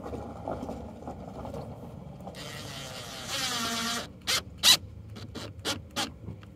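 Cordless drill driving a mud-flap screw, running for about a second and a half and winding down in pitch, followed by several sharp clicks and knocks.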